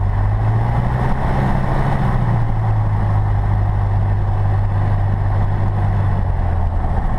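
Light aircraft's engine and propeller heard from inside the cabin, a steady low drone while taxiing.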